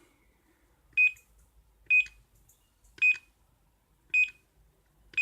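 Keypad access controller giving a short high beep with a click for each key pressed, five presses about a second apart: the code digits being entered slowly to get into programming mode.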